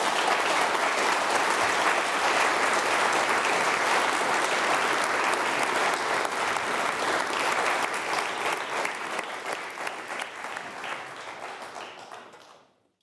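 Large seated audience applauding: dense, steady clapping that starts right away, thins out after about eight seconds and dies away near the end.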